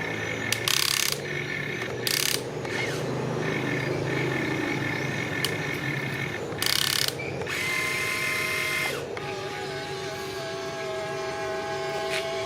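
Remote-control excavator's small electric motors and gearboxes whining and whirring as the machine works, the whine changing pitch about nine seconds in. Three brief, louder bursts of noise cut in, about half a second, two seconds and seven seconds in.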